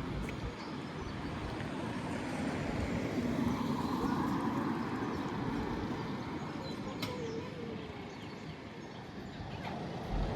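Heritage tram running along its track, a steady rumble that swells a little in the middle, with a single click about seven seconds in.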